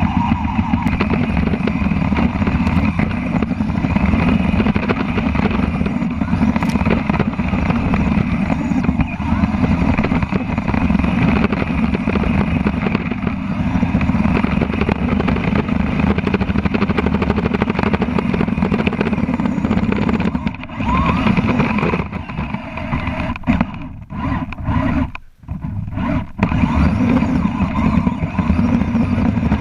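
Kyosho Blizzard FR radio-controlled snow cat running over snow, its electric drivetrain and rubber tracks making a steady, loud clattering whir close up. The noise drops out briefly several times about two-thirds of the way through, as the machine eases off and pulls away again.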